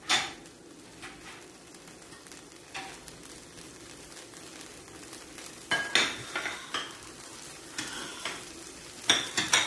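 Oil heating in a nonstick frying pan, sizzling quietly and steadily, with several sharp clicks and knocks of a utensil against the pan; the loudest come in a cluster near the end.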